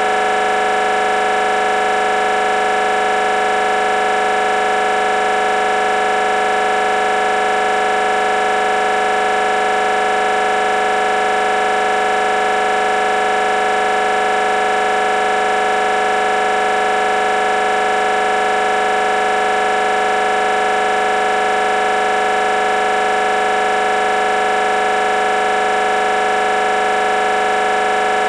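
Building fire alarm sounding continuously: one loud, unbroken, unchanging tone made of several pitches at once.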